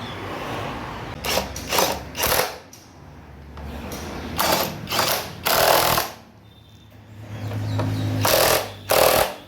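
A power tool running in short bursts, about eight times, each well under a second.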